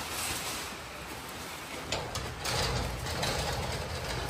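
Shipping crate being handled and taken apart: scattered knocks and scraping, with a few sharp clicks about two seconds in, over a steady low hum.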